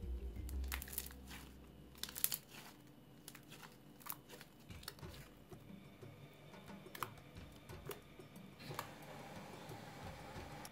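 Fluffy slime made from glue, borax and shaving foam crackling and popping as hands stretch, squeeze and press it: a scatter of sharp, sticky little crackles.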